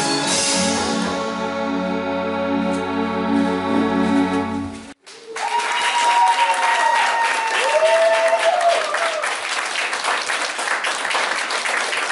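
Band's closing held keyboard chord that cuts off abruptly about five seconds in, followed by an audience applauding with a few cheers.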